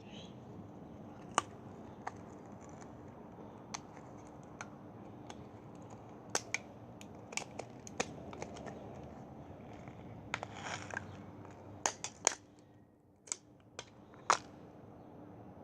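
Scattered sharp clicks, snaps and scrapes of a smashed LG Volt phone's plastic, metal and glass parts being prised and pulled apart by hand. There is a scratchier stretch a little past the middle and the loudest snap near the end.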